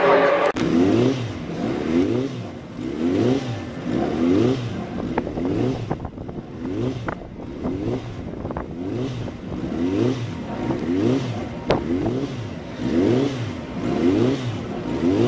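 Racing motorcycle engine being revved up and down over and over, about once a second, with a few sharp clicks in between.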